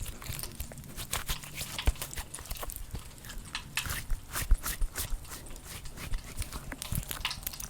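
Sticky gummy-bear squishy toys being squeezed and handled by fingers: a dense, irregular run of sticky clicks and taps.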